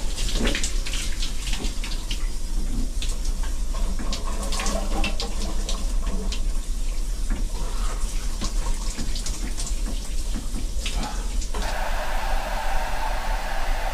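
Water spraying from a hand-held shower head in a small shower stall, splashing unevenly. Near the end it cuts suddenly to a hair dryer blowing steadily.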